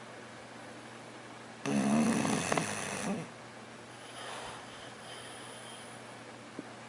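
A sleeping dog snoring: one loud snore lasting about a second and a half, then a fainter breath.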